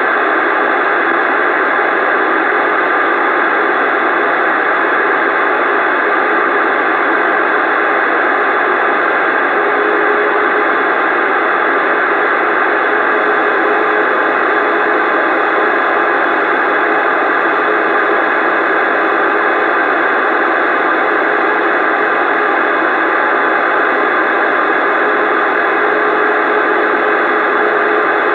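Steady hiss and static from a CB radio receiver on an open channel, unbroken, with faint steady tones under the noise.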